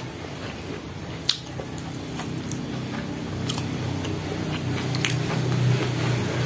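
Close-up chewing and biting of a meal of raw lalapan vegetables and fried side dishes, with a few sharp crunches at irregular intervals. A low steady hum grows louder from about two seconds in.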